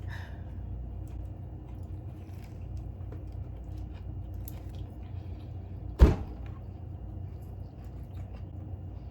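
A person quietly chewing a bite of burger, with faint mouth clicks over a steady low hum, and one loud thump about six seconds in.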